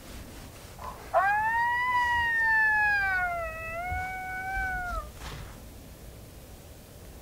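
Coyote howl played through a FoxPro Fusion electronic predator call: one long howl starting about a second in, swooping up in pitch, then slowly falling over about four seconds.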